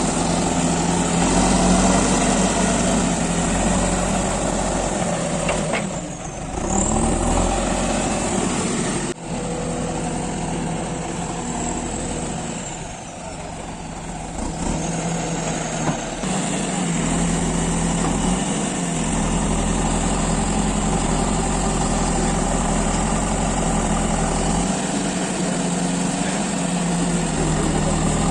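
Diesel engine of a JCB 3DX backhoe loader running under working load, its note easing and picking up again twice, with a sharp click about nine seconds in.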